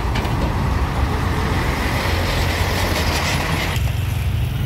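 Engine of a heavy Mitsubishi Fuso log truck running close by as it creeps along the road: a loud, steady low rumble. The higher part of the noise drops away suddenly near the end.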